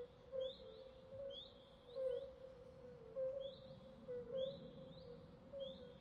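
Swamp wildlife chorus: short, high, rising chirps repeating about once or twice a second, over a steady lower drone of calling with soft notes pulsing in it.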